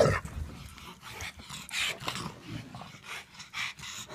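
A Rottweiler and a pug play-fighting: irregular short noisy breaths and low play-growls, with a loud burst right at the start.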